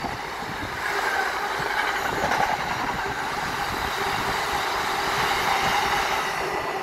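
Container freight train passing on the rails: a steady rush of wheel and wagon noise that eases slightly as the last wagons go by near the end.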